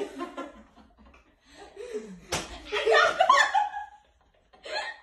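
Young women shrieking and laughing in excited bursts, with one sharp smack a little over two seconds in.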